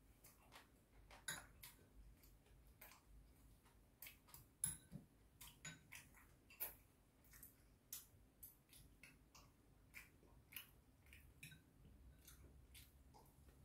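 Faint, irregular clicks and taps of metal chopsticks and a spoon against ceramic bowls and a plate during a meal, the loudest about four and a half seconds in.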